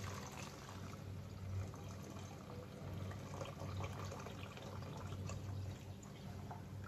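Milk pouring from a glass bowl into a stainless steel pot of cooked rice, a faint, steady liquid splashing, over a low steady hum.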